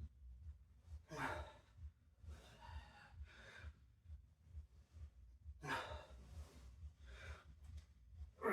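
A man breathing hard, with about five loud sighing exhales a second or so apart, from the exertion of a curl-up workout.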